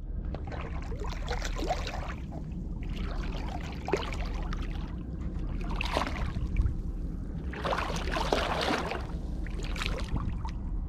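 A person's feet in sandals wading through shallow river water, sloshing and splashing in about five separate bursts over a steady low rumble.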